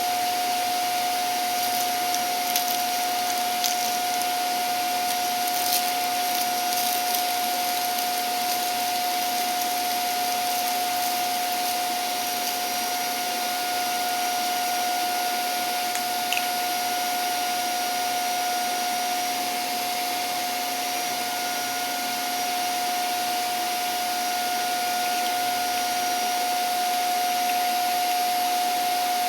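Vacuum cleaner running steadily, its motor giving a constant high whine over a rushing airflow.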